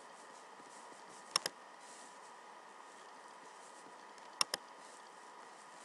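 Computer mouse button clicked twice, each a sharp pair of clicks in quick succession, about three seconds apart, over a steady faint hiss.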